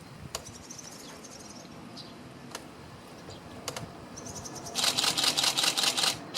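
Camera shutter firing a rapid burst near the end, about ten clicks a second for just over a second, after a few single shutter clicks. Faint high twittering calls of swallows come between the clicks.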